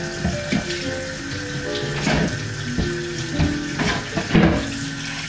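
Pull-down kitchen tap running into the sink while things are rinsed under the stream, with a few clatters of items knocking in the sink, the loudest about four and a half seconds in.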